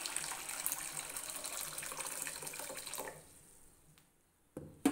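Hot water poured in a stream into a black non-stick kadai, splashing in the pan, tapering off and stopping about three seconds in. A short knock follows near the end.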